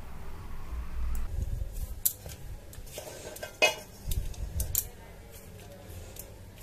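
Hands squeezing crumbly wheat-flour dough in a stainless-steel mixing bowl, with a few sharp clicks against the bowl: one about two seconds in, a louder one past three and a half seconds, and another near five seconds.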